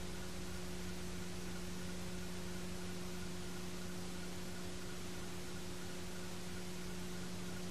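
Steady hiss with a constant low electrical hum and a fainter higher tone: the noise floor of an old videotape recording, with no sound of the game on it.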